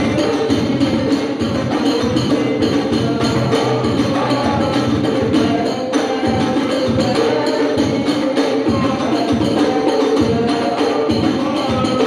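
Hadroh ensemble of hand-struck frame drums (rebana) and a bass drum playing a dense, steady sholawat rhythm.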